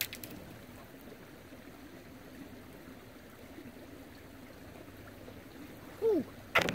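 Small creek trickling steadily into a shallow pool. A faint click comes at the very start, and near the end there is a short falling squeak and then a sharper knock.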